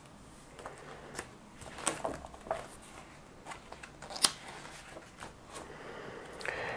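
Pages of a hardcover comic book being turned and handled: soft paper rustles and flicks, with a sharper snap of a page about four seconds in.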